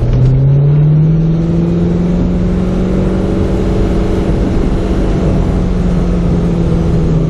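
Car engine pulling as the car speeds up in the first second, then running steadily at cruising speed with road noise, picked up by a camcorder's built-in microphone.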